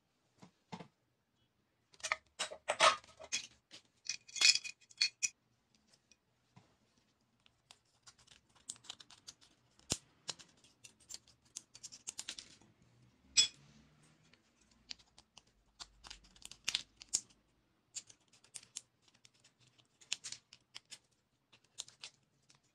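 Scissors cutting thin tin-can metal from a can lid: bursts of short, sharp snips and clicks, with a louder cluster of clicks a few seconds in.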